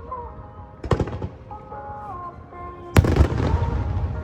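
Fireworks bursting over accompanying music: one sharp bang about a second in, then a louder burst near three seconds followed by dense crackling.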